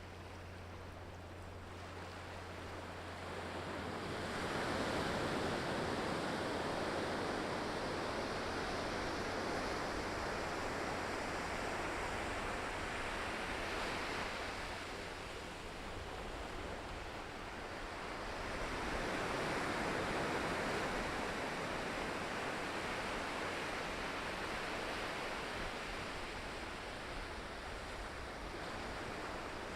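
Ocean surf breaking on the shore, a steady wash that swells into two larger surges, about four seconds in and again near the middle.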